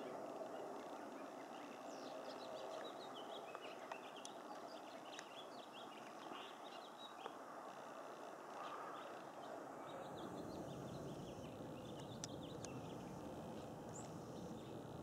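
Small birds twittering in quick runs of short high chirps, twice, over a faint steady background rumble.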